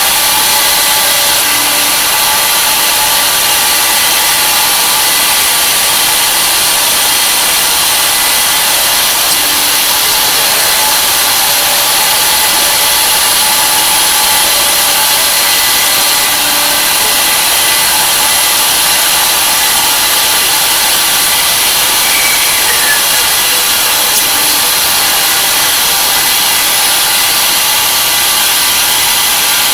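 Tree Journeyman 250 CNC milling machine running, its spindle and cutter milling aluminum. The noise is loud and steady, with several fixed high tones over a hiss.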